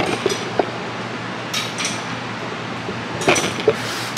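A few light metallic clinks and knocks, scattered and irregular, over a steady low hum.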